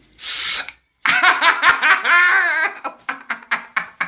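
Laughter: a short breathy burst, then a drawn-out laugh with a wavering pitch, breaking into quick choppy pulses near the end.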